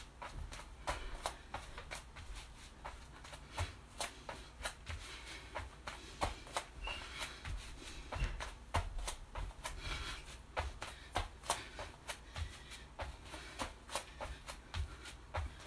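Feet landing and sliding on a foam exercise mat during plank jumping jacks with a knee tuck: a quick, uneven run of light taps, scuffs and soft thumps, a few each second.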